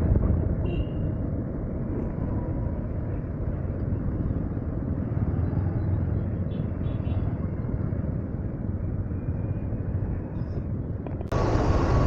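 Steady low rumble of a Honda Hornet 160R single-cylinder motorcycle on the move, with wind buffeting the action camera's microphone. Near the end the sound jumps abruptly to a louder, brighter rumble.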